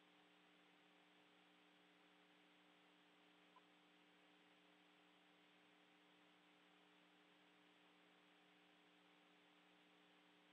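Near silence: the faint steady hum and hiss of an open audio line, with one tiny click about three and a half seconds in.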